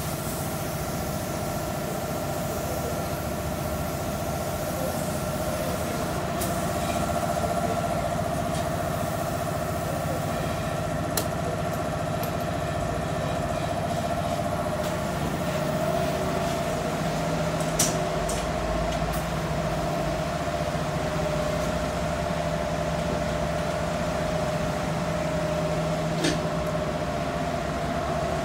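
An engine running steadily at idle, an even drone with a low and a mid hum, with a few sharp clicks scattered through it.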